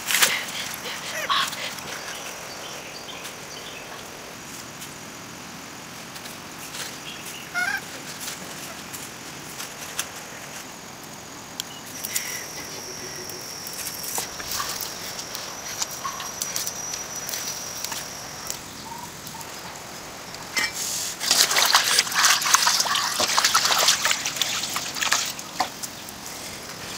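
Wood fire crackling under a pan of water, with scattered clicks and a few short chirps. A steady high insect drone runs for several seconds midway, and near the end a louder stretch of dense crackling and bubbling comes as the water boils.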